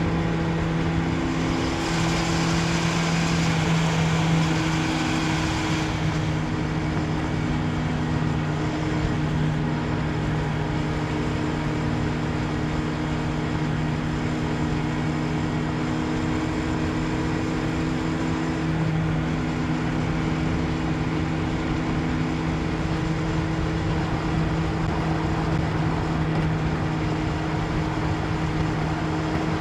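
1992 Honda CB750 Nighthawk's air-cooled inline-four running at a steady speed while the bike is ridden, with a rush of hiss for a few seconds near the start.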